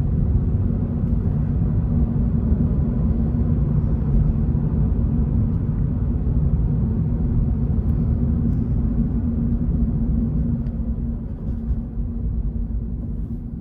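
Toyota GR86's 2.4-litre flat-four engine and tyre rumble heard inside the cabin while driving: a steady low drone that eases off near the end.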